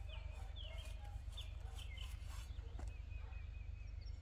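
Birds chirping repeatedly in short, high, quick-gliding calls over a steady low rumble, with one faint click near the end.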